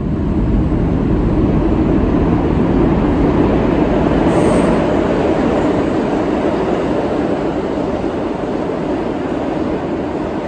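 New York City subway express train of R142-family cars passing through the station on the express track without stopping: a loud, steady rumble of wheels on rail that builds quickly at the start and eases slightly toward the end, with a brief high hiss about four and a half seconds in.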